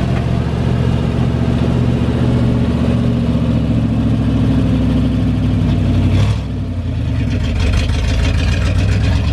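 1968 Chevrolet C20 pickup's engine idling steadily. About six seconds in the sound dips briefly, then settles into a more evenly pulsing idle.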